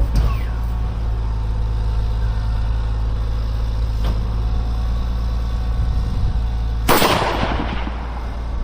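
A single .308 rifle shot about seven seconds in, a sharp crack followed by a short echoing tail, over a steady low rumble.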